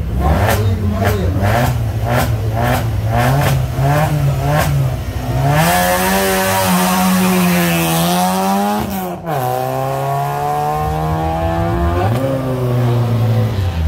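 Citroën C2 rally car's engine blipped repeatedly, about twice a second, then revved hard as the car launches from the start line, rising in pitch through the gears with a sudden drop at each upshift, about three and four seconds after the launch.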